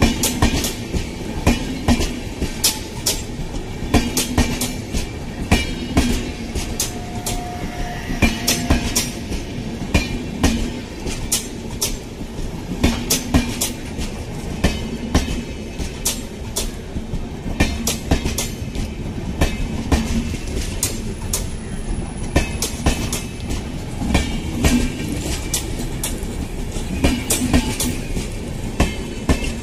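Indian Railways LHB passenger coaches passing close by at speed: a steady rumble of steel wheels on the rails, broken by many sharp clacks and low thumps as the bogies run over rail joints.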